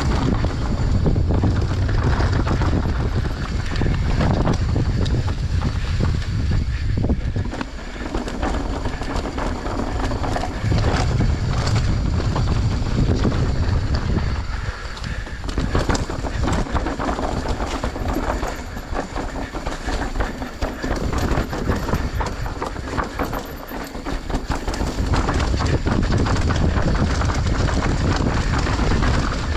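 Enduro dirt bike engine running under load, the throttle opening and easing off several times, with steady clattering and knocks from the bike over rough ground.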